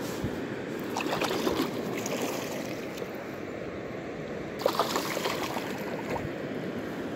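Shallow river water running over stones, a steady rush, with two short bouts of splashing about a second in and again near five seconds.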